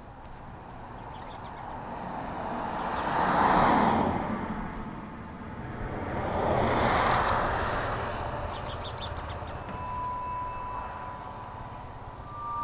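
Street ambience in which two vehicles pass by, each swelling and fading, the louder about three and a half seconds in and the other about seven seconds in. Birds chirp briefly several times, and a steady high tone comes in near the end.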